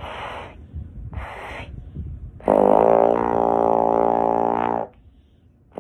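Trombone playing the 'tuba note', a very low sustained tone that imitates a tuba: two short rushes of air come first, then one long, loud, steady low note held for about two seconds that stops abruptly.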